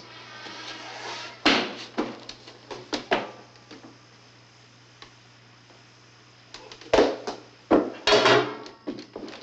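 Kitchen clatter: a string of knocks and clanks, as of pots, utensils and cupboard doors being handled, loudest in clusters about a second and a half in and again near the end, over a steady low hum.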